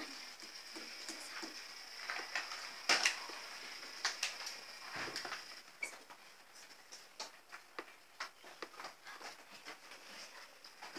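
Small LEGO Mindstorms robot driving slowly: a steady high whine from its motors, with scattered light clicks and taps.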